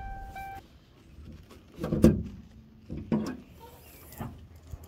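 A Ford car's warning chime sounds twice right as the running engine stops. Then come three separate knocks and clunks about a second apart, from the car's door and hood being worked to get under the hood.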